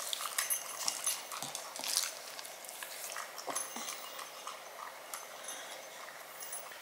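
Small dog eating from a white ceramic bowl: irregular crunches and clicks of chewing and of muzzle and food against the bowl.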